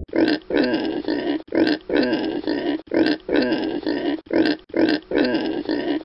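Wild pig grunting in a fast run, about two grunts a second, in short groups of a few with brief breaks between.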